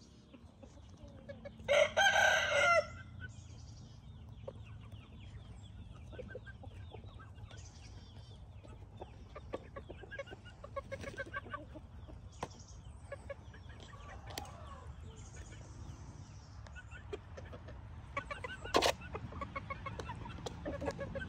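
Young chickens clucking and pecking at grain in a plastic feed jug, with one loud crow lasting about a second near the start and another short loud call near the end.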